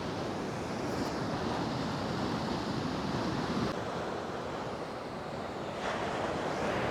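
Ocean surf washing onto the beach and rocks, a steady rushing that swells and eases, with wind buffeting the microphone.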